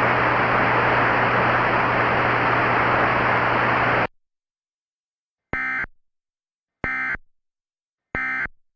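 Steady radio-style static hiss with a low hum that cuts off abruptly about four seconds in. It is followed by three short, identical bursts of EAS data tones, about 1.3 seconds apart: the end-of-message (EOM) header that closes an Emergency Alert System broadcast.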